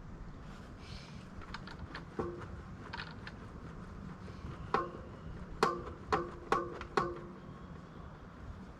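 A run of light metallic clicks and clinks from metal parts being handled and knocked, with a few faint ones early and a cluster of five sharper ones from about five to seven seconds in. Several of them ring briefly at the same pitch.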